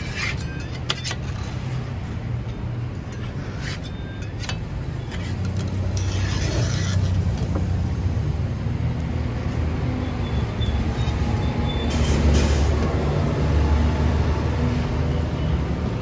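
Road traffic running past, a steady low rumble of car and bus engines that swells louder toward the second half. A few light clicks of a metal spatula against a cast-iron pan come in the first few seconds.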